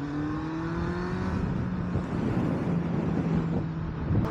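Kawasaki Z800's inline-four engine pulling under way, with wind rush. It rises in pitch for about the first second and then holds steady, with a short break and a fresh climb near the end, likely a gear change.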